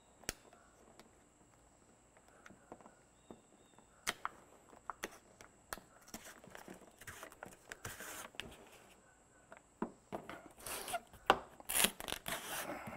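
Backing liner of the double-sided adhesive tape being peeled out from under a plastic rear bumper guard: faint, intermittent ripping and rustling with small clicks, with louder rustling and handling noises near the end.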